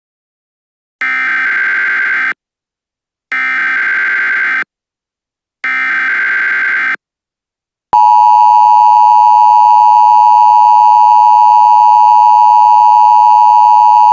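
Emergency Alert System broadcast: three bursts of SAME digital header data tones, each about a second long with a second's gap between them, followed about eight seconds in by the steady, louder two-tone EAS attention signal.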